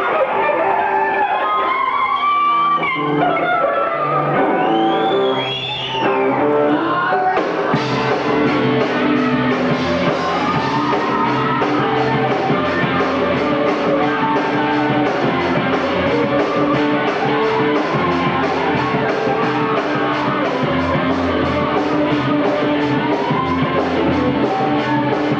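Live rock band music: a guitar lead with bending, gliding notes, then the full band with drums and cymbals comes in on a steady beat about seven seconds in.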